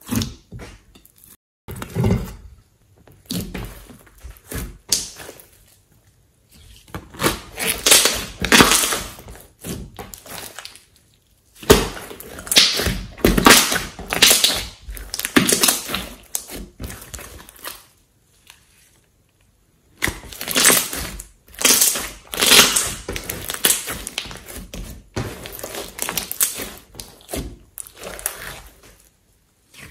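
Hands squishing and kneading a large mass of soft slime: wet squelches and crackly pops from air pressed through it, coming in irregular bursts with short pauses and one silent gap about two-thirds of the way through.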